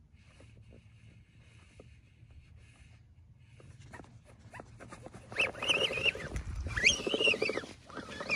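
A small dog vocalizing: a few high, wavering calls in the second half, the loudest sound here.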